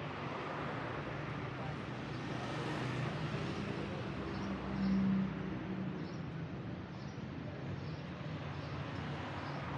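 Street traffic noise, with a passing motor vehicle's engine hum growing louder to a peak about five seconds in and then fading.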